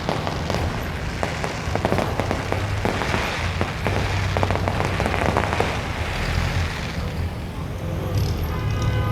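Aerial fireworks display: a dense, continuous crackling of many small bursts over a low rumble. A pitched, horn-like tone comes in near the end.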